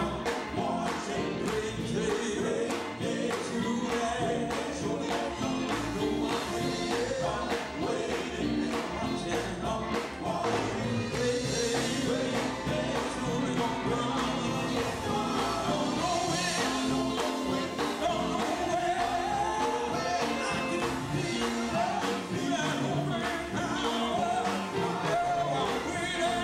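Live gospel quartet music: men singing lead and backing harmonies into microphones over a band of electric guitars and drums, with a steady beat.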